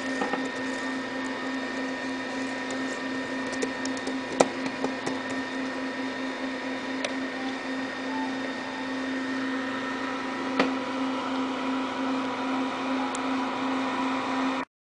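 Steady hum of a running computer, a low tone with a higher whine over it, with a few sharp clicks from the mouse or keyboard; the sound cuts off abruptly near the end.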